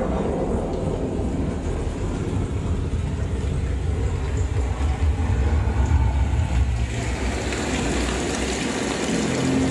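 Samsung Q900A soundbar and its subwoofer playing a test video's soundtrack: a steady, heavy, deep rumble, strongest in the bass and swelling a little around the middle. A hiss rises over it in the last couple of seconds.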